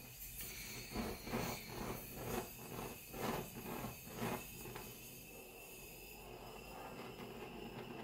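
Handheld butane cartridge blowtorch hissing as its flame heats a steel machete blade, with a run of uneven puffs and pops for a few seconds from about a second in, then a steadier hiss.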